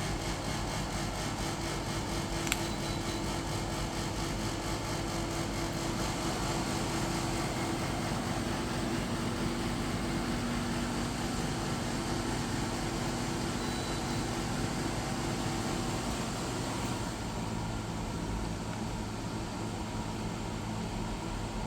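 Reiwa CP-1201RB 1.5 hp portable air conditioner running: a steady rush of air with a low hum, and a single click a couple of seconds in. About three-quarters of the way through, the hum shifts lower and the hiss softens.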